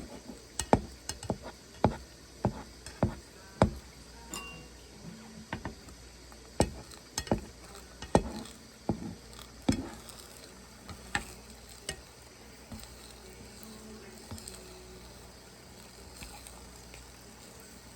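Kitchen utensils clinking and knocking against cookware as food is handled, irregular sharp knocks, frequent in the first half and sparser after about ten seconds, over a faint steady background of insects chirping.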